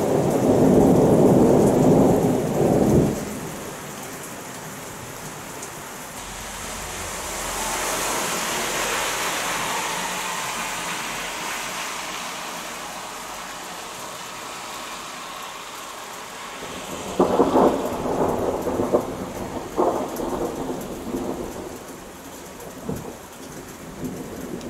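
Thunder rolling and dying away about three seconds in, over the steady hiss of heavy rain. About two-thirds of the way through a closer thunderclap cracks and rumbles for a few seconds, with a last smaller crack near the end.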